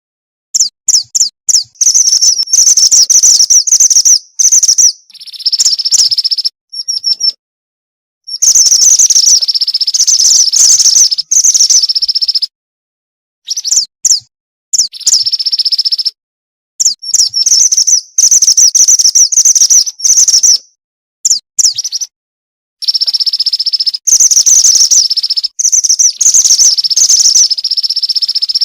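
Female mountain mantenan bird calling, played as a lure sound: rapid high chirps in dense runs of a few seconds, broken by short, completely silent gaps.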